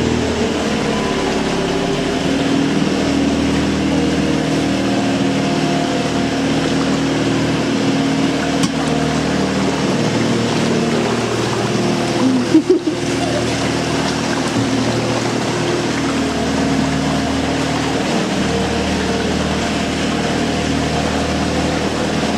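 A GRP cruiser's engine running steadily at cruising speed, heard inside a brick-lined canal tunnel. About halfway through there is a brief cut and a short louder sound.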